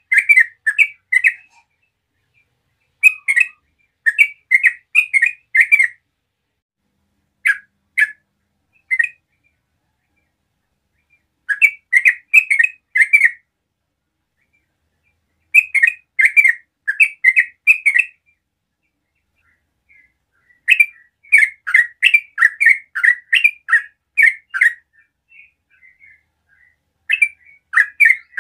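A bird calling in bouts of short, sharp notes, about two or three a second, with pauses of a few seconds between bouts.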